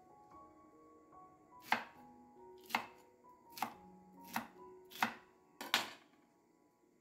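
A kitchen knife chopping vegetables, six sharp strokes about a second apart, coming slightly quicker towards the end.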